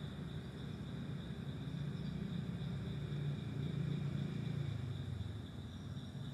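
A low rumble that builds a couple of seconds in and eases off near the end, over a steady high insect drone.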